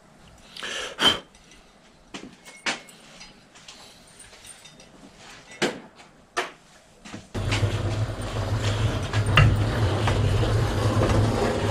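Scattered metallic clinks and knocks of bicycle bottom-bracket parts and tools being handled. About seven seconds in, a steady, much louder noise with a low hum starts and covers the rest.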